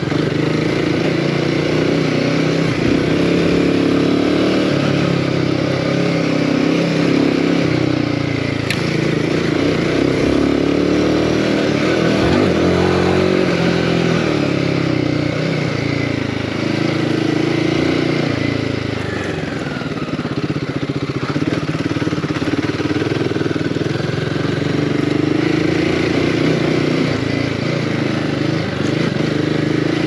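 Royal Enfield Himalayan 450's single-cylinder engine running under constantly changing throttle, its pitch rising and falling as it pulls and backs off, with a brief easing off about twenty seconds in.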